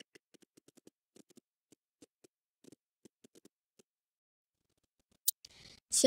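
Near silence with faint, scattered ticks, then a single sharp click about five seconds in.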